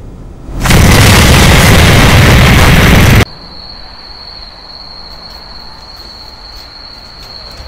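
A sudden, very loud blast of harsh noise lasts about two and a half seconds and cuts off abruptly. A steady high-pitched ringing tone follows and holds over a faint background hiss.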